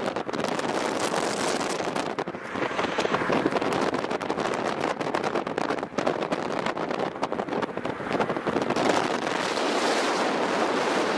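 Wind buffeting the microphone at an open car window while the car drives at road speed, mixed with the car's road and tyre noise.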